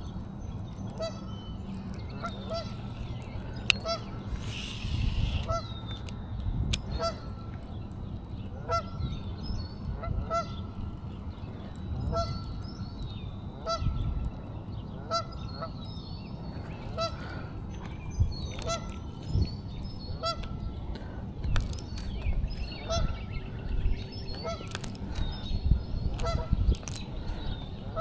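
Goose honking repeatedly: short, even calls about once a second, over a steady low rumble.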